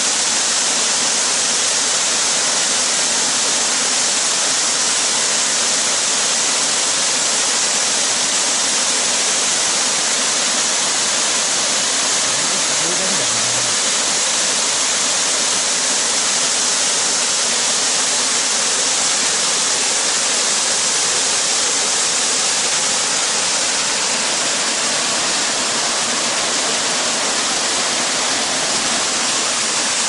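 Waterfall cascading down a rock face into a pool: a steady, even rush of falling water.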